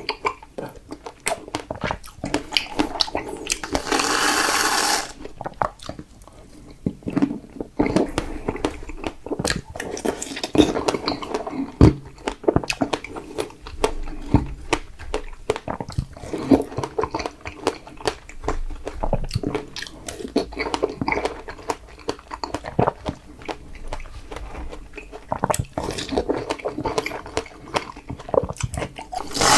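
Close-miked chewing and biting of fresh strawberries: wet, squelchy mouth sounds with many small clicks, and a brief loud rush of noise about four seconds in.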